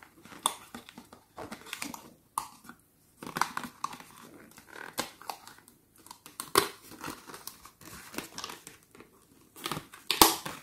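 Cardboard packaging insert handled while a small toy figure is worked loose from it: irregular rustling, crinkling and scraping of card with small clicks and taps, louder near the end.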